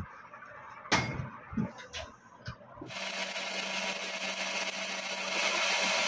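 A few light clicks of handling calipers and the damper part; then, about three seconds in, a metal lathe running with a steady hum while its cutting tool turns down a white plastic rod with a steady hissing cut, to make a new bush for a washing-machine shock absorber.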